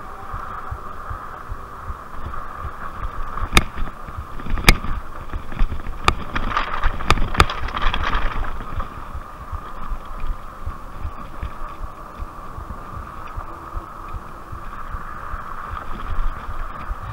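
Rad Rover fat-tyre e-bike under way on a dirt trail, its 750-watt hub motor giving a steady whine over the rumble of the tyres. Through the middle there are several sharp knocks as the bike jolts over rocks, and a crunching hiss as the tyres roll across loose gravel.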